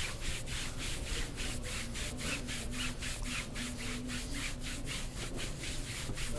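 A barber's hands rubbing quickly back and forth in a massage, about four swishing strokes a second in an even rhythm.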